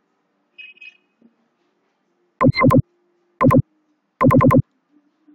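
Three short bursts of a loud electronic buzzing tone, the last a rapid run of about five pulses.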